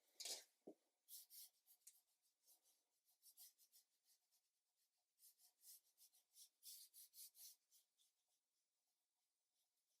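Faint, scratchy strokes of a paintbrush dragged across textured cotton watercolour paper, coming in short irregular runs with brief pauses between them.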